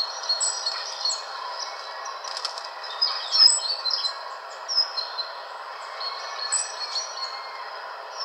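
Recorded robin song played through a tablet's small speaker: many short, high chirps and trills, one after another, over a steady background hiss.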